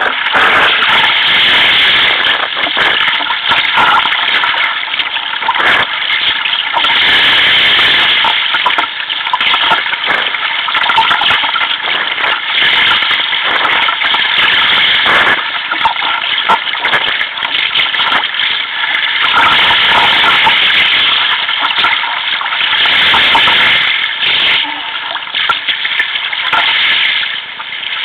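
Waves rushing and splashing against a sea kayak's hull and deck as it paddles through choppy sea. It is a loud, continuous wash of water close to the microphone, broken by irregular slaps and surges.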